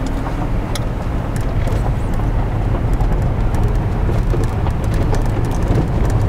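Vehicle driving slowly on a gravel dirt road, heard from inside the cabin: a steady low rumble of engine and tyres, with scattered small clicks.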